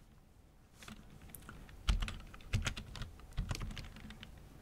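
Typing on a computer keyboard: a run of irregular keystrokes that starts about two seconds in, after a near-quiet opening.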